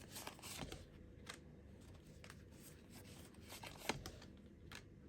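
Tarot cards being handled: faint rustling with a few soft clicks, the sharpest about four seconds in.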